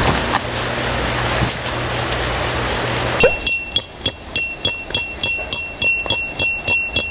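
Tent peg being hammered into the ground: quick strikes about three a second, starting about three seconds in, over a steady high ringing tone. Before the hammering there is only a steady rushing background noise.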